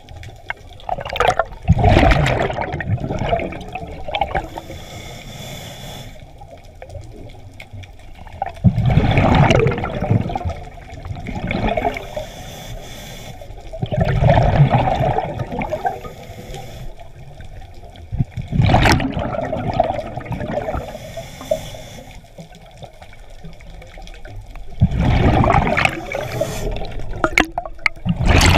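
A scuba diver breathing through a regulator close to the camera: five bubbling exhalations, one about every five seconds, each a rushing burst of bubbles, with a faint hiss of inhalation between them.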